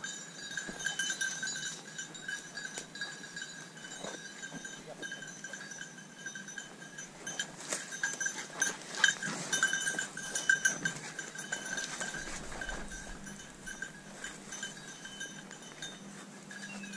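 A bell on an English setter's collar ringing steadily as the dog moves through cover, with the crackle of twigs and brush being pushed through, busiest about halfway in.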